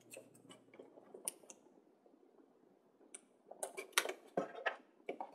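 Chipboard pieces handled and pressed together on a tabletop, making scattered small clicks and taps, with a busier run of sharper taps and scrapes about three and a half to five seconds in.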